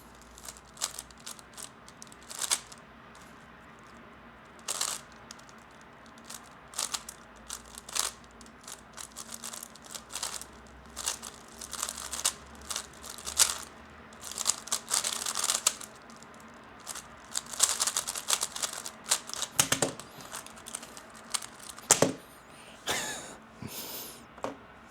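3x3 speed cube being turned by hand: irregular plastic clicks and rattles, with dense runs of fast turning in the middle and a sharp knock near the end.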